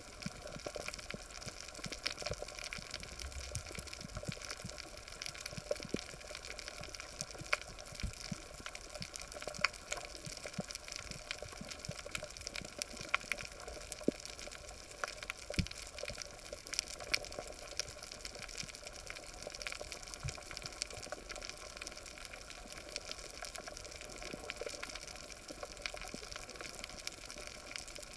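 Underwater reef ambience heard through a camera housing: a steady hiss scattered with many irregular sharp clicks and crackles.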